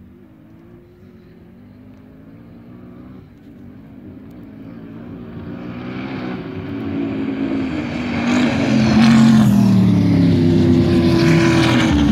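Two dune buggies racing flat out across the sand, their engines growing from faint to loud over the first eight seconds or so as they close in, then staying loud as one passes close.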